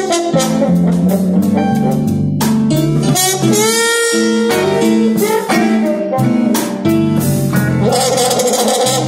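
Live blues band playing: electric guitar lines over keyboard and drums, with a long bending note about three to four seconds in.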